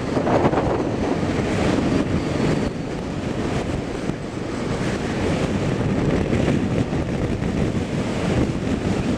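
Wind buffeting the microphone: a loud, uneven rushing noise that swells and eases.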